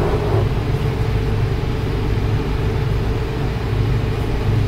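Twin Yanmar diesel engines of a power catamaran running steadily with both in reverse gear: a steady low drone.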